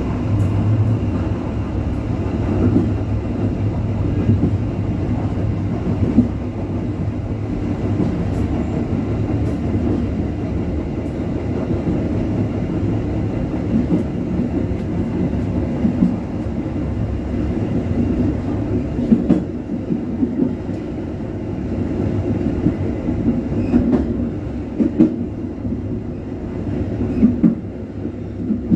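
Commuter train running along the track: a steady rumble of wheels on rail, with occasional sharp clicks as the wheels pass over rail joints.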